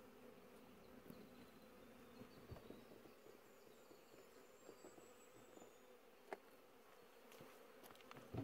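Honeybees buzzing around an open hive: a faint, steady hum. A few light clicks or knocks sound over it, the loudest about six seconds in.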